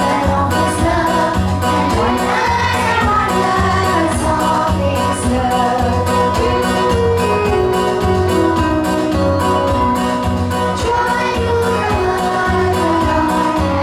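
A song: singing over instrumental music with a steady beat.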